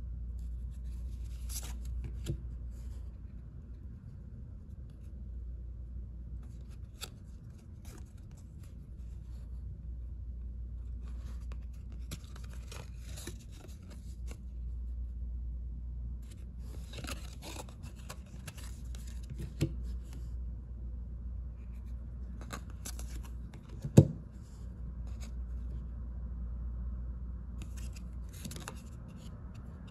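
2022 Panini Prestige football cards sliding against each other as a stack is flipped through by hand, in repeated short rustling stretches. There are a few sharp clicks, the loudest one late on, over a steady low hum.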